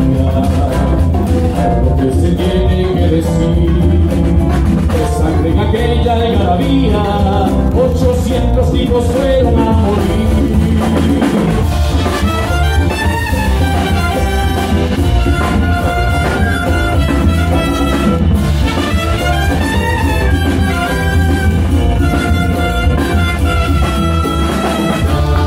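Live band playing Latin American folk-dance music with a steady bass beat and brass.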